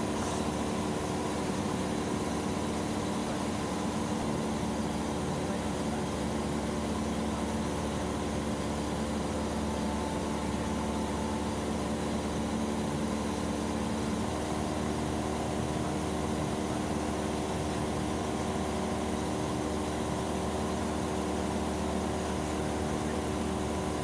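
Cessna 172 Skyhawk's piston engine and propeller droning steadily in flight, heard inside the cockpit. The tone shifts slightly about fourteen seconds in.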